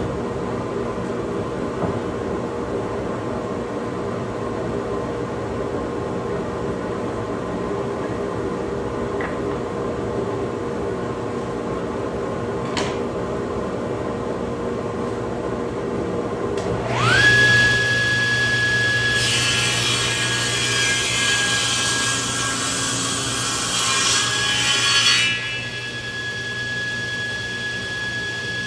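Table saw starting up about two-thirds of the way in, its whine quickly rising and holding at a steady high pitch, then cutting wood with a louder rasping noise for about six seconds before running on freely. Before it starts, only a steady background hum is heard.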